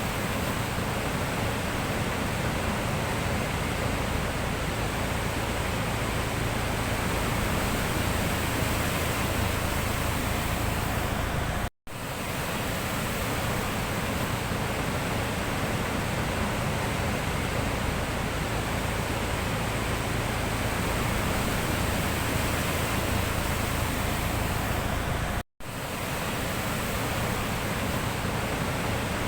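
Sea surf: a steady, even wash of waves with no separate breaks standing out. It cuts out for a split second twice, about 12 seconds in and again near 25 seconds.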